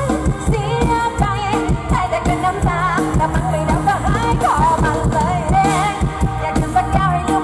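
Live Isan mor lam band playing loudly over a steady fast drum beat and heavy bass, with a woman singing the melody into a microphone, heard through the stage's PA speakers.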